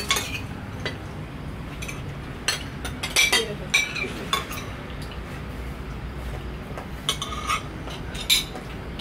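Metal spoons and forks clinking and scraping against porcelain plates as people eat, in scattered irregular clinks over a low steady hum.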